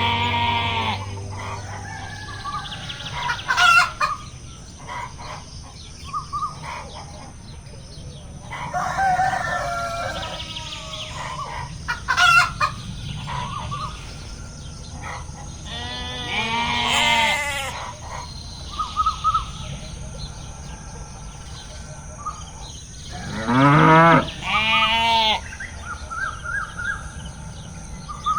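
Farmyard animal calls: a rooster crowing and chickens clucking, with other livestock calling, the loudest two calls about three quarters of the way through.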